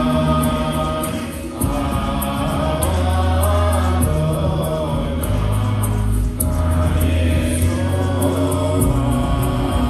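Music with voices singing over held low notes, with short breaks about one and a half and six seconds in.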